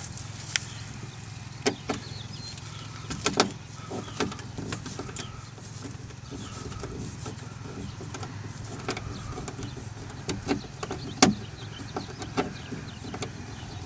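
Scattered sharp clicks and knocks of plastic trim and door-handle parts being pried and handled on a removed car door panel, over a steady low hum.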